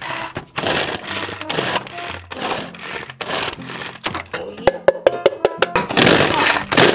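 Hand-powered food chopper whirring in quick repeated strokes, about two a second, mincing vegetables; music plays underneath.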